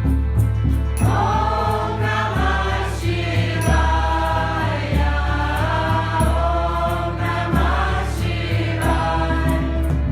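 Devotional mantra chanting in the kirtan style: a group of voices sings long phrases over a deep bass that shifts note about every second, with light, regular ticking percussion.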